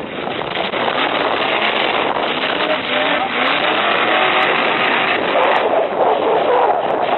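Full-size truck engines revving in a demolition derby, their pitch rising and falling over a dense rush of noise.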